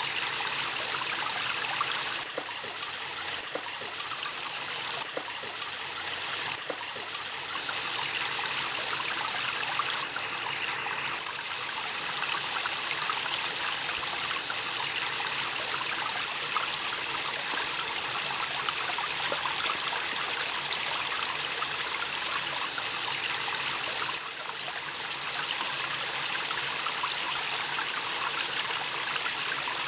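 Small shallow stream trickling and burbling over stones, steady throughout, with two sharp knocks about seven seconds in.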